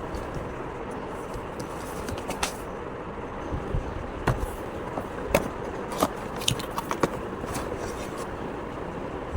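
Scattered light clicks and taps, most of them in the middle few seconds, over a steady rumble of background noise.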